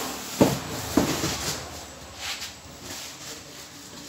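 Two sharp knocks about half a second apart, then a few softer scrapes, as parts of an LED TV are handled and set down during disassembly.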